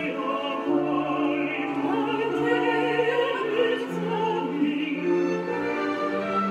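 Operatic music: a singer with wavering vibrato on held notes over an orchestral accompaniment.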